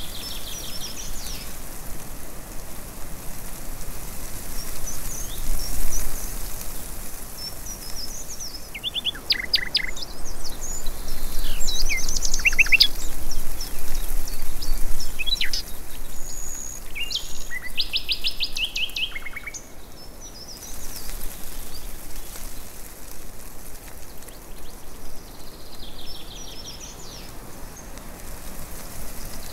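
Birds chirping and calling over a steady background hiss, with a few quick trills of rapidly repeated high notes through the middle.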